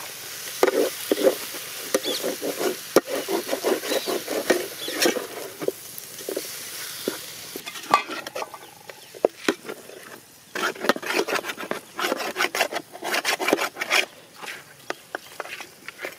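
A perforated steel skimmer stirring and scraping chicken pieces in a large metal pot, with a sizzle underneath through the first half. After a sharp clink about 8 seconds in, a second run of quick scrapes and knocks of the skimmer against the pot.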